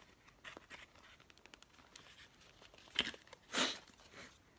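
Packaging being handled and unwrapped: light clicks and rustles, with two short, louder crinkles a little past halfway.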